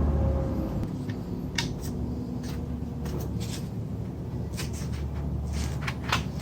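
Scattered light clicks and taps of rig hardware being handled during disassembly and cleaning, over a steady low hum.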